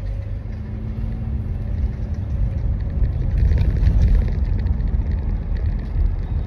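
Car running down the road, heard inside the cabin: a steady low engine and road rumble that swells a little about three to four seconds in.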